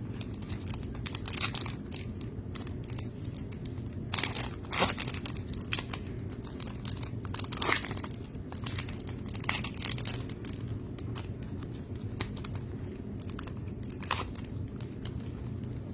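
Plastic trading-card pack wrappers being torn open and crinkled by hand, in irregular crackling bursts with louder clusters about four to five seconds and eight seconds in, over a steady low hum.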